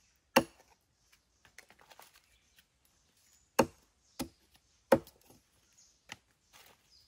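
A broad knife chopping down onto a wooden log, about five sharp separate strikes. The loudest comes just after the start and two more come between three and a half and five seconds in. It is cutting the stems off wild mushrooms.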